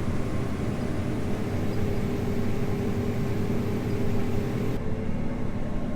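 Combine running, heard from inside its cab: a steady machine drone with a steady hum. Near the end the higher hiss and the hum drop away.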